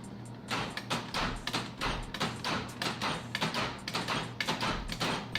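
A rapid run of light clicks and taps, about three to four a second, as the repaired passenger-side interior door lock of a 1999 Jeep Cherokee XJ is worked, over a steady low hum.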